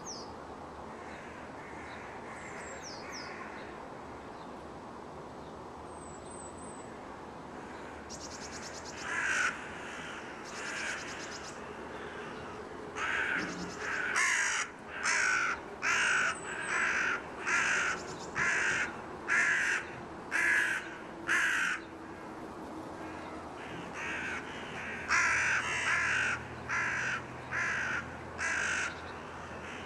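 Crow cawing over and over in two long runs of short harsh calls, a little under one a second, over a steady city hum.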